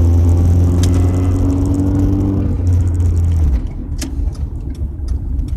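Car engine with an exhaust leak, heard from inside the car while driving at low speed: a loud, low exhaust drone that rises slightly in pitch. About three and a half seconds in, the drone drops away sharply as the throttle is let off, leaving quieter road noise with scattered clicks.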